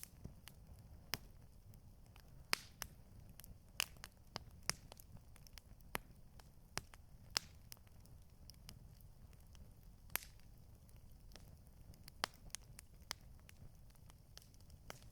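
Campfire crackling: irregular sharp pops and snaps, scattered one or two a second, over a low steady rumble.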